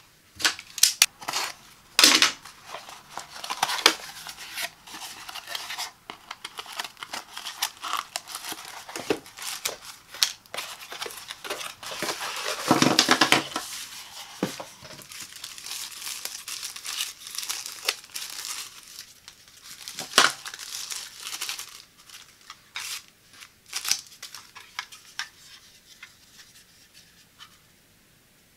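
Unboxing handling sounds: the flaps of a cardboard box open with sharp clicks and scrapes, then the clear plastic bags around the night lights crinkle and tear as the units are unwrapped. Near the middle there is a longer, louder stretch of crinkling, and the plastic night-light shells give light taps and clicks as they are handled.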